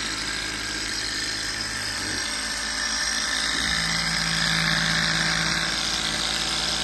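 Enjomor horizontal-flywheel hot-air Stirling engine, fired by an alcohol burner, running very fast with a steady mechanical whir. A low steady tone joins in about halfway through.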